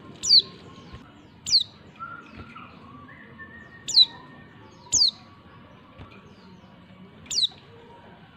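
Female white-eye (pleci) calling: five short, high, downward-sweeping call notes at uneven intervals, with faint lower whistles in the background. These are the female calls used to provoke male white-eyes into answering.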